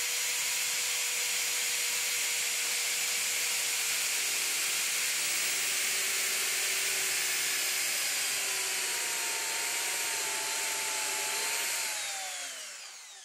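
An electric drill in a homemade drill press runs steadily while a ball-cutting bit bores a ring into a wooden plank to cut out a wooden ball. Near the end the motor winds down, its whine falling in pitch as it fades.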